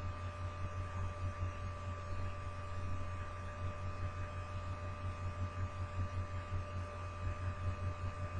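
Steady low hum with a few faint, high, steady tones above it; no burp is heard.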